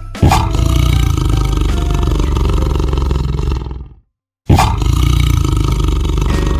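A large wild animal roaring: two long roars, each starting abruptly. The first fades out after about three and a half seconds, and the second starts about four and a half seconds in after a brief silence.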